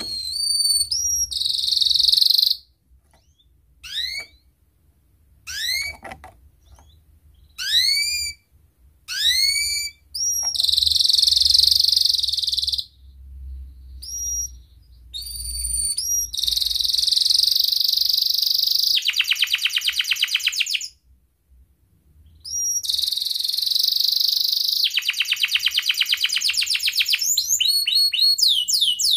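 Domestic canary singing. It opens with short upward-sweeping chirps separated by brief pauses, then moves into longer phrases of high trills and fast rattling rolls, with a short pause about two-thirds of the way through.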